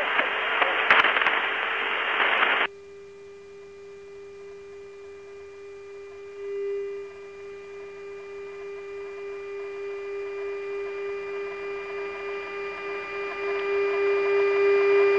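KC-135 intercom audio: a burst of hiss from an open microphone cuts off abruptly about two and a half seconds in, leaving a steady electrical hum that slowly grows louder.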